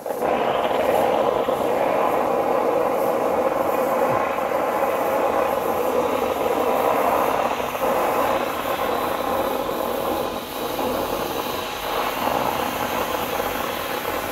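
Kärcher steam cleaner hissing steadily as it jets steam from its nozzle onto a surface, switched on and off abruptly.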